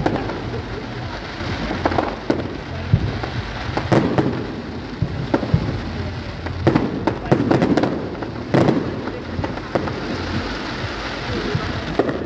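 Aerial fireworks shells bursting: about a dozen sharp bangs at irregular intervals of one to two seconds, over a continuous haze of noise.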